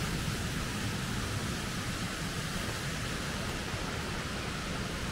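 Steady rushing noise with no distinct separate sounds in it.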